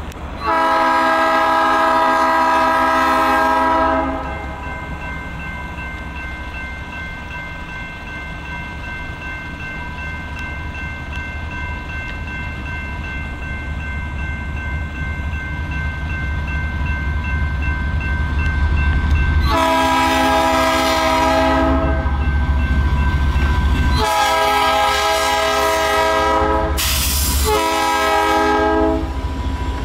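GE B23-7 diesel locomotive sounding its air horn: one long blast near the start, then a run of blasts from about two-thirds of the way through as it draws close. Between the blasts its twelve-cylinder GE diesel engine rumbles, growing steadily louder as it approaches, with a faint ringing tone over it.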